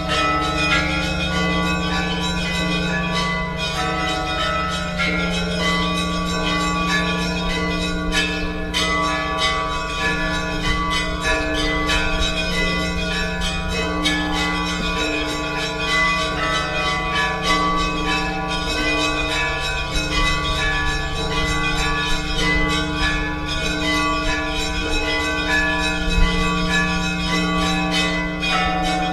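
Orthodox church bells ringing together: smaller bells struck in quick, overlapping strokes over the steady hum of the larger, deeper bells.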